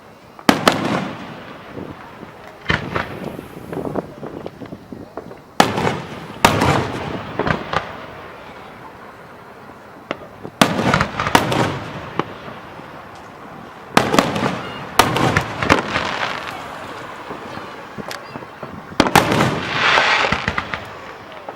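Aerial fireworks display: sharp bangs every few seconds, several in quick pairs, each trailing off in a long echo. A hissing crackle swells near the end.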